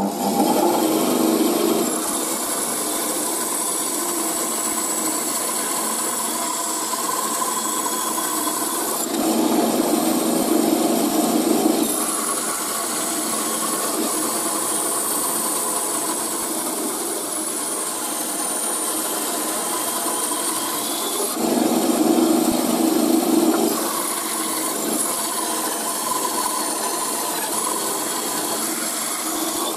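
Small Silverline benchtop bandsaw running and cutting through wood, with a steady high whine over the cutting noise. It grows louder in two stretches, about nine and twenty-one seconds in.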